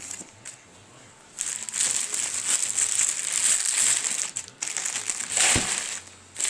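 Clear plastic wrapping crinkling loudly as it is handled, starting about a second and a half in, with a short break and a dull knock near the end.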